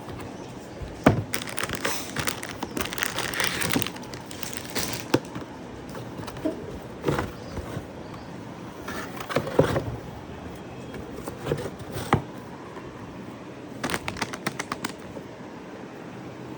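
A new puzzle and its packaging being handled: scattered clicks and knocks, with bursts of rustling and crinkling about a second in and again near the end.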